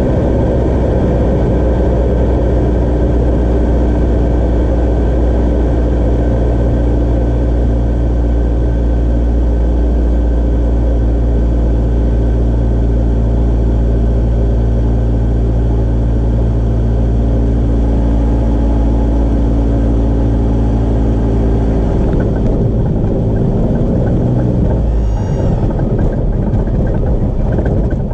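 Cessna 172 amphibian's piston engine and propeller running steadily, heard from inside the cabin. Near the end the engine note changes and the deep drone drops away.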